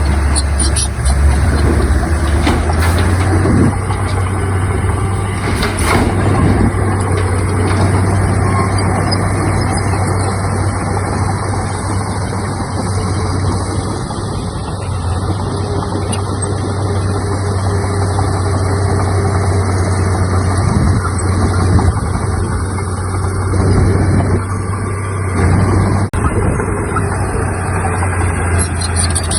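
Heavy diesel engine of earthmoving equipment running steadily, with a constant low drone and a few brief knocks in the first few seconds.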